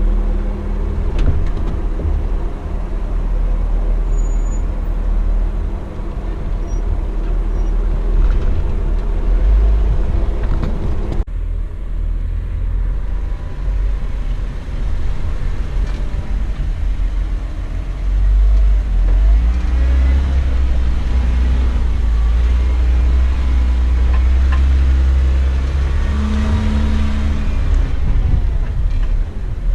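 Jeep's engine running under way, a heavy low rumble with a faint engine hum above it; the sound changes abruptly about eleven seconds in.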